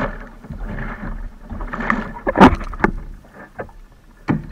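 Double-bladed paddle strokes on a sit-on-top kayak: irregular splashes and water slapping against the plastic hull, the loudest a sharp splash about halfway through.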